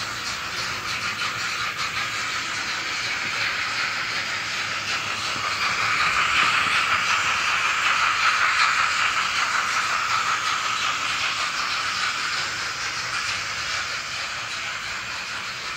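N-scale model of the steam locomotive 41 001 running with its digital sound decoder playing steam-locomotive hiss and chuffing through its tiny speaker, mixed with the model's running noise on the track. The sound grows louder in the middle as the locomotive comes closer and fades a little toward the end.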